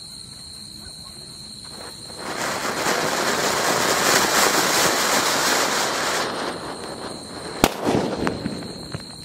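Ratna 'Ganga Jamuna' combination firecracker: about two seconds in, its anar (ground fountain) stage starts spraying sparks with a loud, even hissing that lasts about four seconds and fades. Then the cracker goes off with one sharp bang, followed by a few small crackles.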